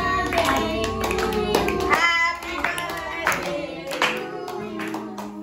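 A birthday song sung over music, with several people clapping along.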